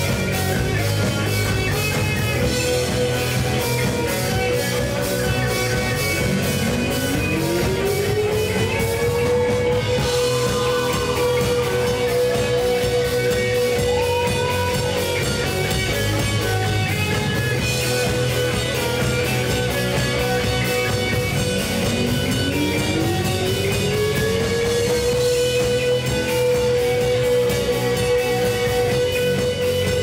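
Live rock band playing: electric guitar and drum kit. A note glides up and is then held for several seconds, twice, about six and twenty-one seconds in.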